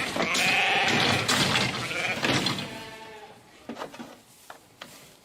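Sheep bleating twice, a long bleat followed by a shorter one, then a few light knocks.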